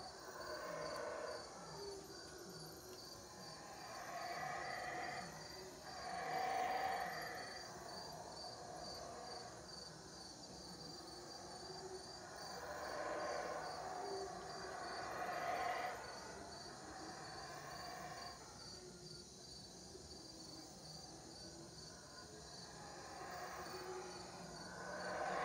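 Black howler monkeys roaring in swelling choruses that build and fade over a second or two, several times, over a steady trill of crickets.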